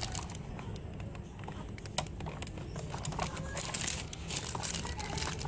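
Plastic bag wrapped around a cable crinkling in the hands, in irregular rustling bursts, with a few small clicks, over a steady low hum.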